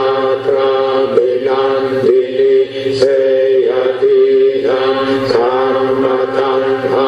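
Buddhist chanting in Pali by male voices, a steady monotone recitation held on one pitch with short breaks for breath.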